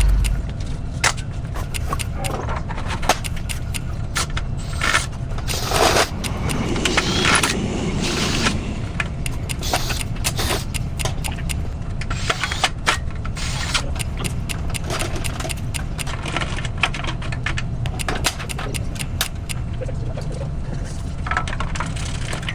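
Repeated clicks, knocks and scrapes of gate frame parts being handled, fitted and bolted to a fence panel during hurried assembly, over a steady low rumble.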